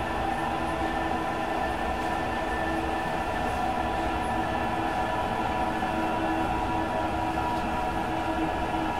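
Sapporo Municipal Subway Tozai Line 8000 series rubber-tyred train running at steady speed, heard inside the car: an even rumble with a set of steady humming tones.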